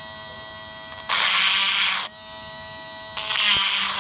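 Dremel 7000 cordless rotary tool running with a steady whine while its grinding stone sharpens the cutters of a Stihl chainsaw chain. Two loud grinding strokes of about a second each come in, one about a second in and one near the end.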